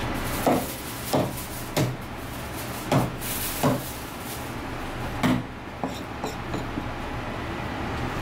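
Kitchen knife chopping through a fish fillet onto a plastic cutting board: about six firm chops at uneven spacing, then a few lighter taps about six seconds in. A steady low hum runs underneath.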